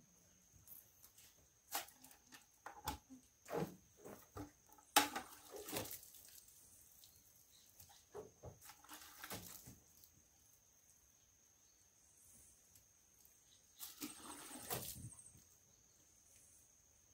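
Faint, irregular rubbing and scrubbing of a car's bodywork being washed by hand, with two longer bursts of scrubbing about five and fourteen seconds in. Behind it runs a steady high-pitched insect drone.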